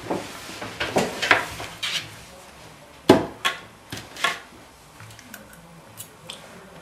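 A fork clinking and scraping against a bowl of pasta in a string of separate clatters, the loudest about three seconds in.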